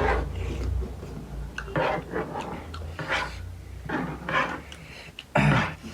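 Mukbang eating sounds close to the microphone: chewing, with scattered clinks and scrapes of utensils on dishes.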